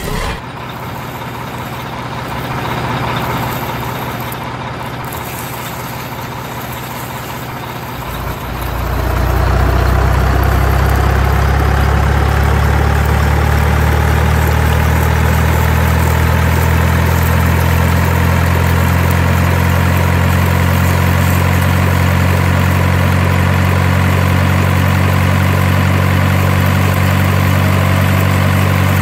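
A large truck engine running steadily, growing louder and deeper about eight seconds in and then holding even, with a faint whine slowly rising in pitch.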